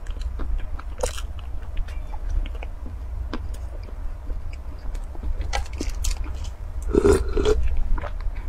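Close-miked chewing and crunching of a chocolate-coated cake, with many small sharp crackles and clicks as the thin chocolate shell breaks in the mouth. A brief louder mouth sound comes about seven seconds in.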